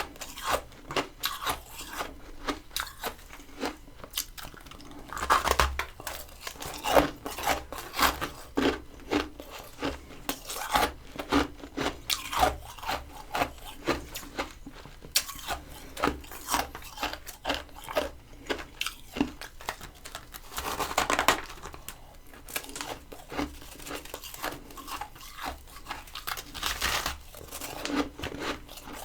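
Freezer frost being bitten and chewed close to the microphone: a rapid run of crisp crunches, with a few louder clusters of crunching.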